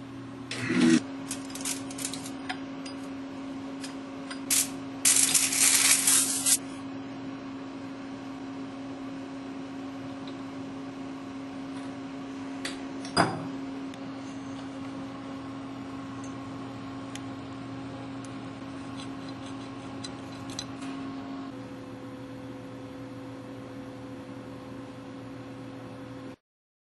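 Steady electrical hum of bench lab equipment, with a few clicks and rustles near the start, a loud hissing rustle lasting about a second and a half some five seconds in, and one sharp knock about thirteen seconds in.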